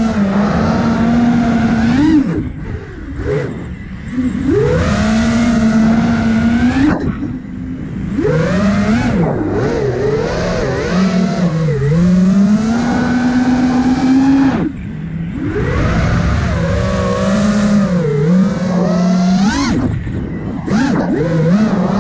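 5-inch FPV quadcopter's motors and propellers whining, the pitch rising and falling with the throttle. The sound drops away briefly several times where the throttle is cut.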